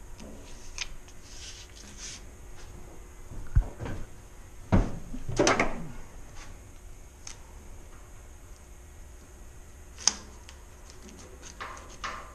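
Hand-handling noises of tools and materials: a sharp knock about three and a half seconds in, another thump just before five seconds followed by about a second of scraping or rustling, then a sharp click about ten seconds in, with lighter clicks scattered around them.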